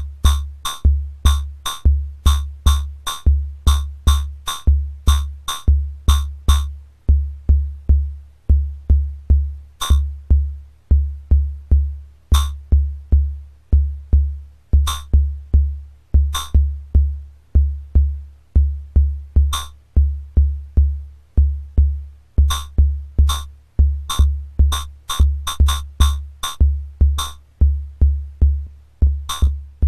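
Homemade CMOS logic-chip drum machine, sequenced by a shift register, playing a looping beat. A steady low drum thump runs under a sharp snare voice. The snare hits come thick for the first several seconds, thin out to occasional hits from about seven seconds in, and fill back in after about twenty-two seconds as the register pattern changes.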